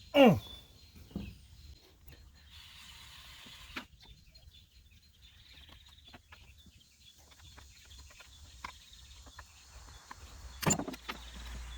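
Chainsaw recoil starter being worked by hand: a sharp whir falling quickly in pitch at the start, a weaker one about a second later, then scattered small clicks and rattles, and another loud sudden whir near the end.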